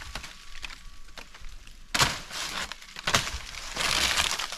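Dry banana-plant leaves and stalk crackling and tearing as they are pulled by hand to take down a bunch of plantains. There is a sharp snap about two seconds in and another a second later, then a longer crackling rustle near the end.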